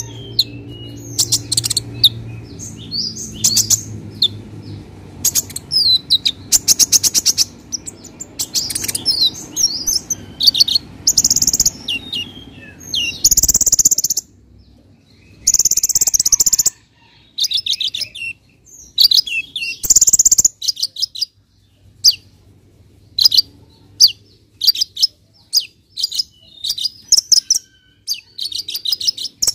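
Male sunbird (kolibri ninja) singing a fast, varied song of sharp high chirps and rapid trills, with a few louder buzzy bursts about midway.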